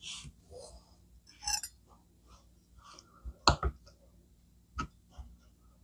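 Kitchen knife tapping against a plastic cutting board while cutting peeled hard-boiled eggs: a few sharp clicks, the loudest a quick pair about three and a half seconds in and another a second later, with light handling sounds between.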